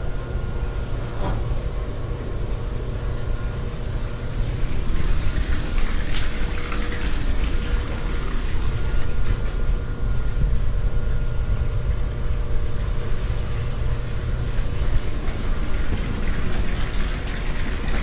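Water rushing through a fire-tube steam boiler's blowdown piping, a steady hiss over a low rumble that grows a little louder about five seconds in: sediment being flushed out of the boiler.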